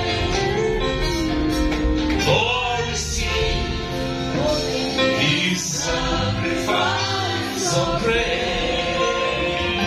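A church congregation singing a gospel praise song together, with music accompanying them.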